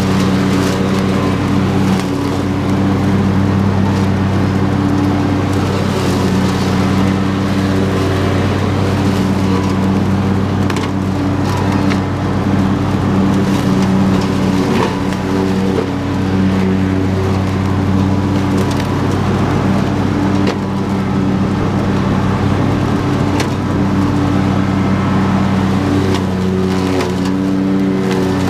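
Husqvarna YTH22V46 lawn tractor's V-twin engine running steadily under load while the mower deck cuts tall grass and brush, with scattered sharp ticks of stems and sticks striking the blades.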